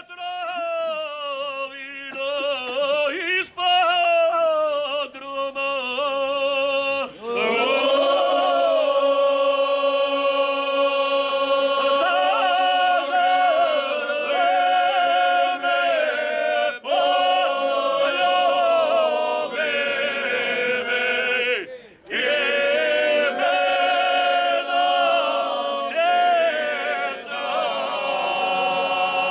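A group of men singing bečarac, a traditional folk song, with no instruments. A single voice with a wavering pitch leads at first, and about seven seconds in several voices join on long held notes. They stop briefly about 22 seconds in, then start again.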